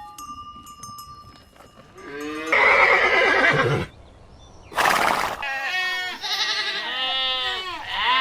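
Horse neighing. One call comes about two seconds in, then a short noisy burst, then a long whinny that wavers and falls in pitch.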